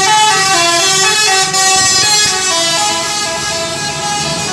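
Telolet horn on a tour bus: a set of musical air horns playing a quick tune, the pitch stepping from note to note about every half second.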